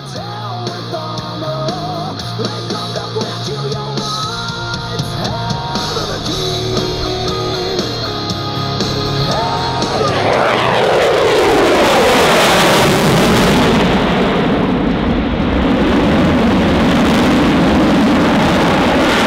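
Rock music with guitar and drums plays for the first half. About ten seconds in, an F-22 Raptor's twin Pratt & Whitney F119 jet engines come in as a loud jet roar with a swirling whoosh that falls in pitch as the jet passes. The roar stays loud with afterburners lit and drowns out the music.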